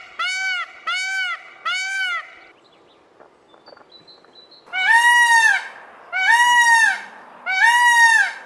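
Peacock calling: a quick run of about four short, arching cries in the first two and a half seconds. After a pause, three louder, longer cries follow about a second and a half apart.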